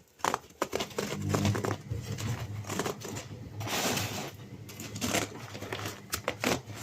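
Flexible tumble dryer vent hose being handled and pushed onto a nozzle: irregular crinkling, rustling and scraping with a few short clicks, over a low steady hum.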